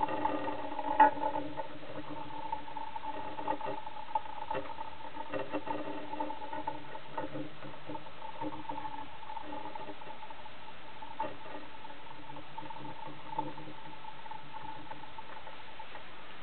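3D-printed spinning top spinning on a hard surface, giving a steady whirring hum. A few sharp knocks sound over it, the loudest about a second in.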